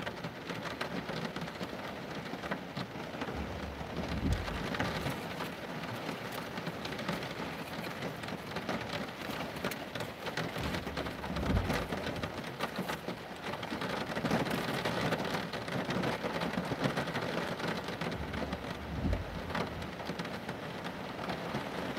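Heavy rain pouring down and splashing on wet paving slabs, a steady dense hiss. Three brief low rumbles stand out, a few seconds in, midway and near the end.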